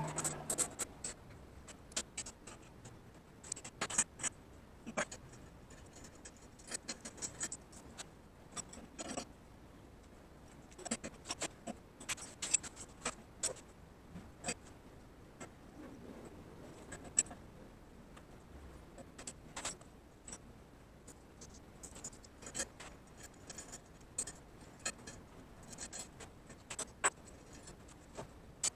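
Irregular light clicks, taps and scrapes, a few every second or two with quiet gaps between. They fit small parts of the forge setup being handled.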